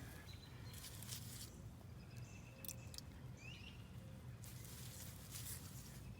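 Faint outdoor ambience: low rumble and brief rustling, with a short rising whistle about three and a half seconds in.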